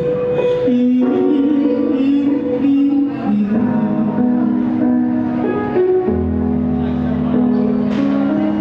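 Backing track with keyboard or piano chords and held notes, played loud through a small portable PA speaker, with a girl singing into a microphone over it; a deep bass line comes in about six seconds in.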